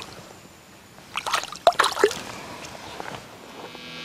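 Water splashing and trickling as a bass is let go over the side of a boat, with a short run of quick splashes about a second in. Music fades in near the end.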